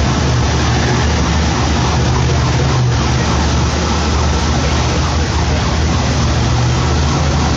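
A vehicle engine running steadily at idle, a low even rumble under a constant wash of street noise.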